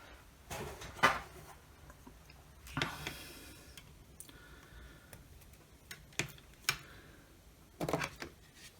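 Scattered light clicks and knocks of circular saw parts being handled and fitted during reassembly, irregular, with a cluster of taps near the end.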